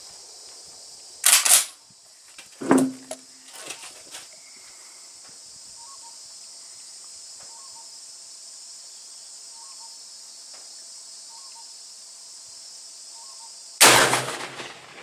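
A single loud shot from an Adler B230 12-gauge straight-pull shotgun firing a Winchester rifled slug, near the end, with a short echoing tail. Earlier come a few sharp clacks and knocks. Insects chirp steadily underneath.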